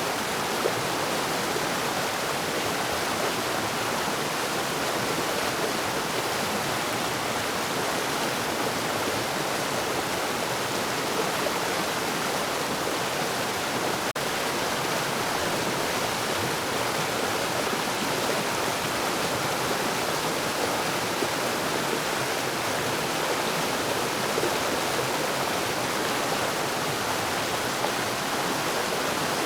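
Forest waterfall: water falling and rushing in a steady, unbroken hiss, with a momentary dropout about halfway through.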